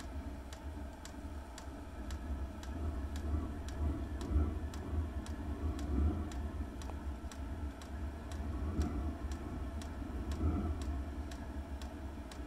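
Diesel air heater's fuel dosing pump ticking steadily, about two and a half clicks a second, over the low steady hum of the heater's fan and burner. It is running on E85 with the pump near its minimum rate, the heater at its lowest output.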